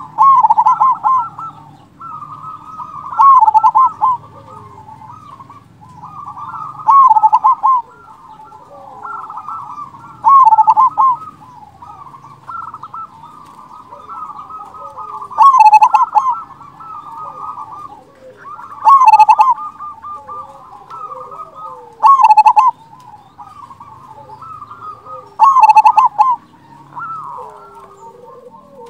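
A local zebra dove (perkutut) singing its cooing song with a big 'kung' voice: a loud full phrase about every three and a half seconds, with softer cooing between.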